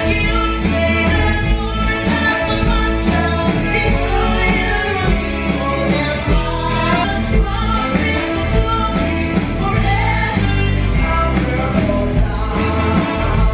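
Upbeat music with a singing voice over a steady drum beat.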